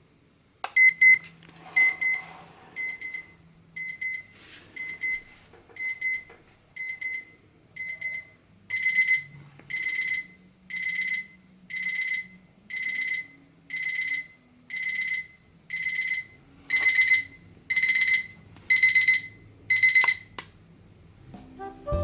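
Seiko QHE195 quartz alarm clock's electronic beep alarm: a high-pitched beep repeating about once a second. About halfway through the beeps become longer and fuller, and they stop about twenty seconds in.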